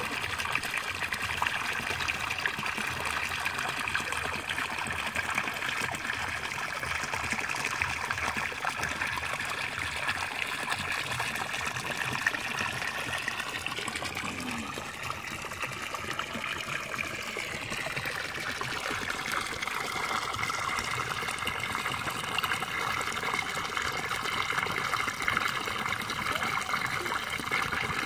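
Water gushing steadily out of a PVC pipe outlet and splashing into a pond.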